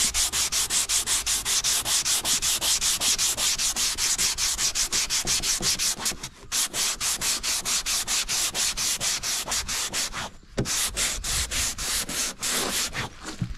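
Fine 320-grit sandpaper rubbed back and forth by hand over a fibreglass bumper, refining earlier 180-grit scratches. The strokes are quick and even, about four a second, with short breaks about six seconds in and again just after ten seconds.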